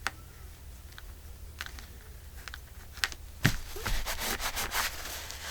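Handling of journal papers and ribbon on a work table: a few light ticks, a sharp tap about three and a half seconds in, then a quick crinkly rustling.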